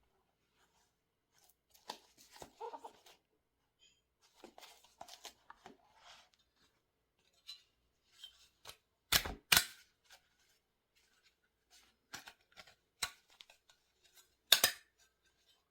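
Sparse small clicks, taps and rustles of hands handling small objects, with a couple of sharper clacks about nine seconds in and another near the end.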